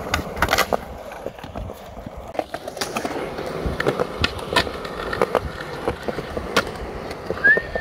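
Skateboard wheels rolling over concrete, broken by sharp clacks of the board popping and landing, and the trucks scraping along a concrete ledge in a grind.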